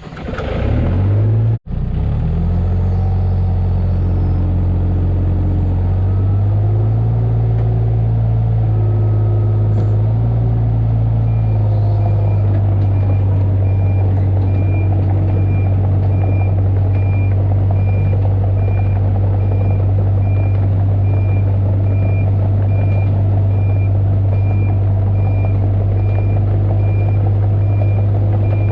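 Diesel engine of a Kato 35 mini excavator running under load, its speed shifting a couple of times early on. After about eleven seconds a regular high-pitched warning alarm starts beeping and keeps on, as the machine travels.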